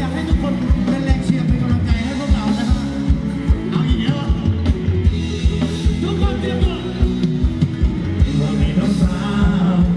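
Live band playing Thai ramwong dance music: a steady drum beat with a singer over it.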